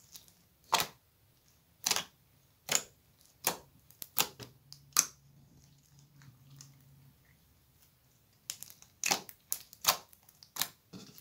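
Hands squishing and pressing clear glitter slime packed with beads, making sharp crackling pops about once a second. The pops fall quiet for a few seconds, then come in a quicker run near the end.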